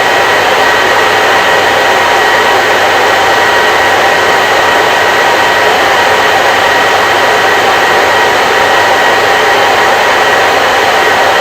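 Hair dryer running continuously, a steady rush of air with a faint motor whine held at constant pitch.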